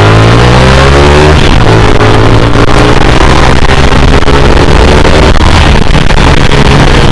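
Motorcycle engine accelerating, its pitch rising for about a second and a half, then dropping at an upshift and running on steadily, under heavy wind rush on the microphone.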